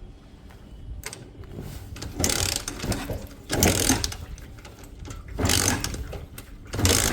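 Chinese 125cc motorcycle engine running, swelling louder in short surges several times, about every second and a half.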